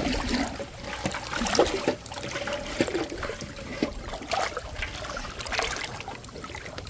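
Shallow water trickling and splashing, with irregular small splashes and knocks.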